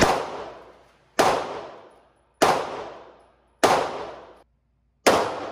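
Handgun shots fired one at a time at a shooting range: five sharp shots about a second apart, the last after a slightly longer pause, each followed by a ringing echo that dies away.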